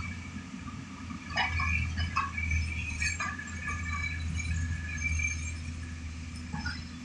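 Construction machine's diesel engine running with a steady low hum, with high, ringing metallic squeaks and clinks coming every second or so.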